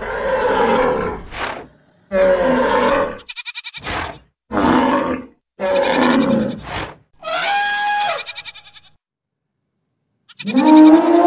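A string of animal-call sound effects for a cartoon stampede, one after another with short gaps: several rough, noisy calls and a fast rattling sound, then, after about a second and a half of silence, a long pitched call near the end.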